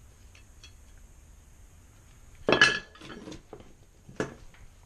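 Metal engine parts and tools clanking and clinking on a worktable while the clutch cover comes off a bicycle engine kit. There is one loud clank about two and a half seconds in, a few lighter knocks, and a sharp clink near the end.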